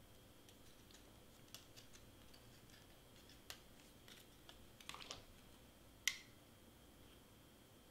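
Faint, scattered clicks and light taps of cardstock pieces being handled, pressed and set down, with a small cluster of taps about five seconds in and one sharper click about a second later.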